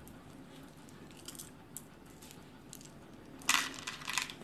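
A handful of small plastic and pearl beads being handled: a few faint clicks as they shift in the palm, then, about three and a half seconds in, a short clatter as they are tipped out of the hand.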